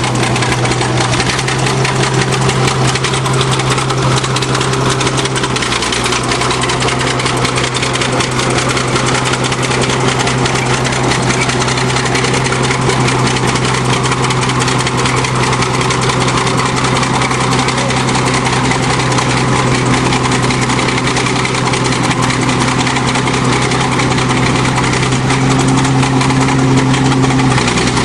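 Crawler bulldozer engine running steadily at constant speed, loud and close, with an unchanging low hum.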